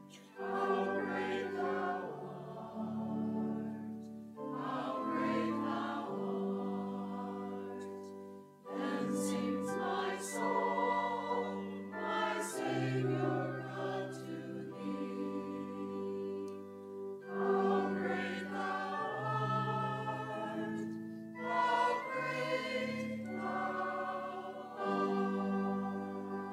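Choir singing a slow hymn in phrases a few seconds long.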